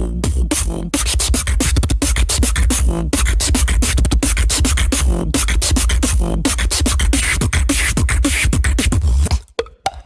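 Beatboxer performing the fast click technique: a rapid run of mouth clicks over a continuous deep bass line, cutting off about nine and a half seconds in.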